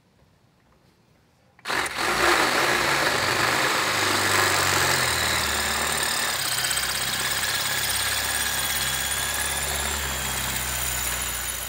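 DeWalt brushless cordless drill running steadily, starting about two seconds in, as it drills out a snapped-off bolt in the lower mount of the front air strut.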